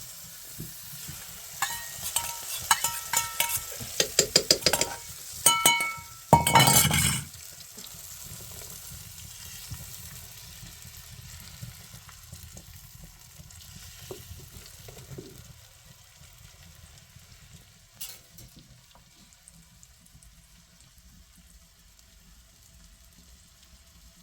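Cooking at a stove: a metal spoon clinks and scrapes against a pot in a quick run of ringing taps. About six seconds in comes a loud hiss lasting about a second, then a low, steady sizzle that fades.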